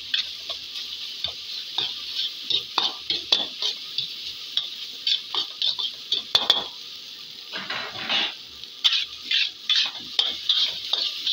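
Metal spatula scraping and clacking against a metal wok as fried rice is stir-fried, over a steady sizzle of hot oil.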